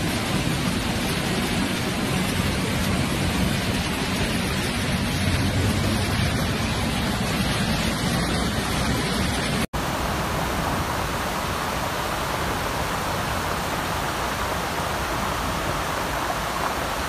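Floodwater rushing as a steady, even noise, broken by a momentary dropout about ten seconds in, after which it sounds slightly brighter.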